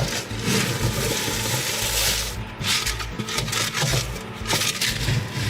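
Irregular rubbing and scraping sounds with a few low knocks, as of things being handled.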